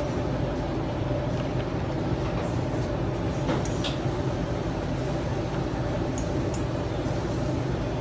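Steady low machine hum, such as a ventilation or refrigeration unit, with a few faint light clicks.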